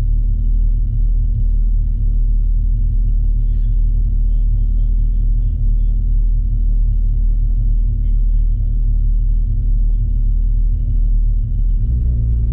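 Porsche 992 GT3 RS's 4.0-litre flat-six running at a steady engine speed under a heavy low rumble. Near the end its note starts to climb as the car accelerates.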